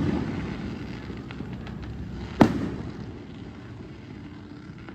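Aerial fireworks shell bursting: one sharp bang about halfway through, with a rolling echo after it, over a low steady rumble.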